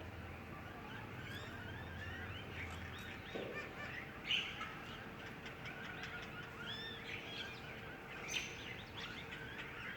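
Many small birds chirping together in a tree: a dense chorus of short, overlapping chirps, with two louder calls about four and eight seconds in, over a faint steady hum.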